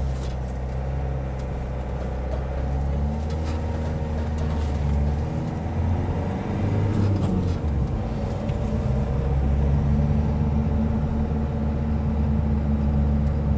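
Van engine and road noise heard from inside the cab while driving, a steady low hum whose engine note shifts in pitch between about five and eight seconds in.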